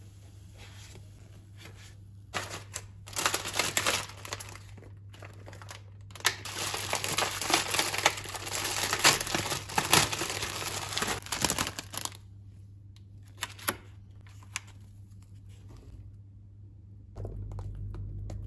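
Plastic food packaging crinkling and rustling as it is handled: short bursts about two seconds in, then a longer stretch of dense crinkling in the middle, with a few sharp clicks after.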